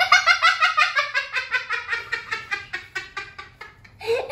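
A young boy laughing in a fast, high-pitched run of about five or six 'ha' pulses a second that slowly drops in pitch, as a nasal swab goes up his nose. It pauses briefly near the end, then the laughter starts again.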